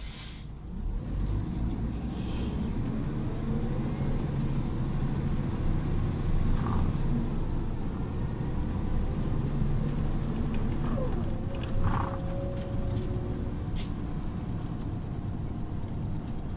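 Scania OmniLink city bus running: a steady low engine and road rumble that picks up about a second in. A faint high whine rises and falls above it, with a few scattered clicks and rattles.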